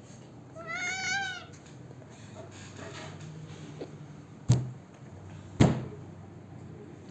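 A cat meows once, a single wavering call about a second long. A few seconds later come two sharp knocks about a second apart, the loudest sounds here.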